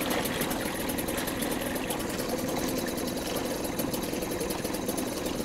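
Mercury 2.5 two-stroke outboard running steadily in a test tub, its water churning. The motor is running with its fuel tank vent shut, so it is about to starve of fuel.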